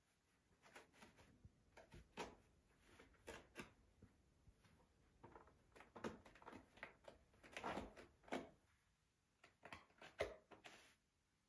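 Faint, irregular light knocks, taps and rustles from a Siberian kitten playing on its own, batting about and landing with its paws.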